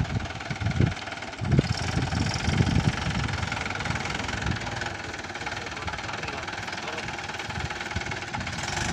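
Mahindra 575 DI tractor's four-cylinder diesel engine running steadily while pulling a fully loaded trolley, with several low thumps in the first three seconds.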